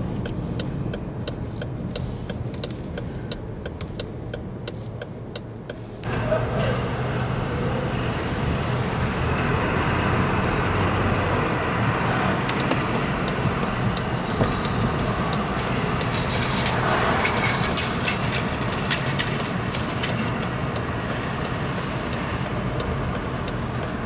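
Car running in slow city traffic, heard from inside the cabin, with the turn-signal indicator ticking about two times a second. About six seconds in, louder street and traffic noise comes in suddenly.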